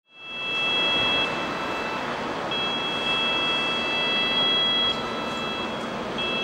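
Two-tone sirens of an approaching fire-brigade convoy, heard as two steady high pitches that break off briefly twice and come back, over the steady noise of city traffic.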